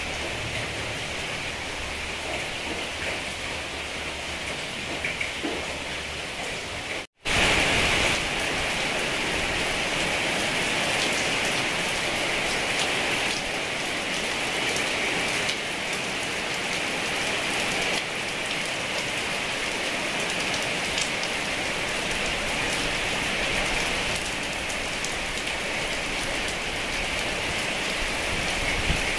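Heavy rain falling steadily, with many fine drips. The sound cuts out for an instant about seven seconds in, then comes back slightly louder.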